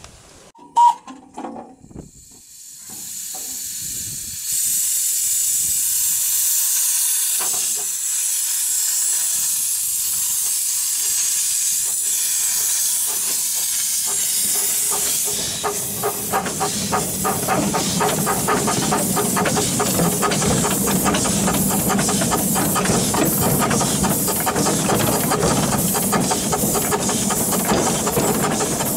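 Miniature steam locomotive hissing loudly with escaping steam, building from about three seconds in, after one short sharp blip. About halfway through it starts working, and a steady rhythmic chuff of exhaust beats runs under the hiss.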